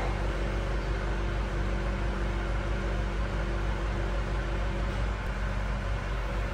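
An engine running steadily at an even speed, a deep continuous hum with no change in pitch.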